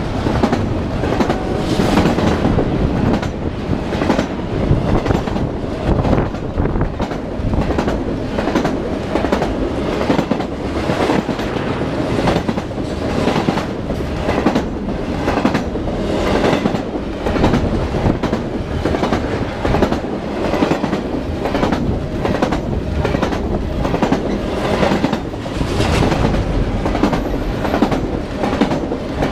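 Long freight train rolling past at moderate speed: the cars' steel wheels clack over the rail joints in a steady run of clicks over a continuous rumble.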